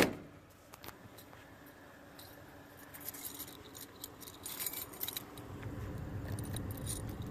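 Keys jangling in several short clinking bursts, most of them in the second half, with a low rumble coming up near the end.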